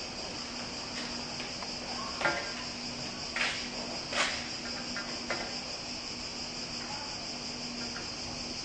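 A steady, high-pitched chirring of insects, with a faint low hum beneath it. A few soft knocks or taps sound in the first half.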